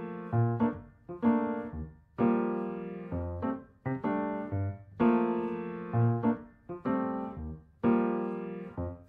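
Background music: slow piano chords, each struck and left to fade, about one a second with short breaks between them.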